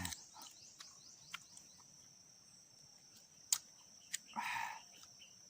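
Steady high-pitched chirring of insects, likely crickets, with two sharp clicks and a short rustling burst in the second half.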